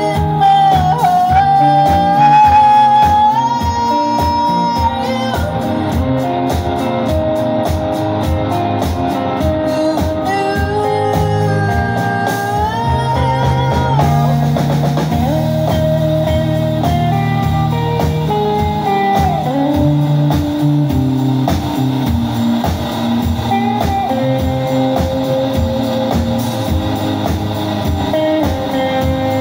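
Live indie rock band playing with electric guitars, bass guitar and a drum kit keeping a steady beat, with melodic guitar lines over the top, heard from the audience.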